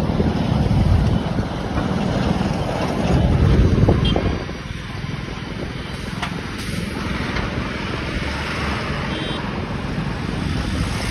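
Highway traffic of heavy trucks: a low rumble of diesel engines and tyres on the road, loudest in the first four seconds, then a steadier road noise.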